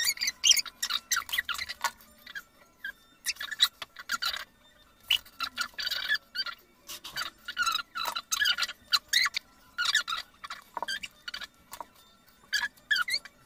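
A comb and hairbrush pulled through long curly hair, an irregular run of short brushing strokes with brief pauses between them.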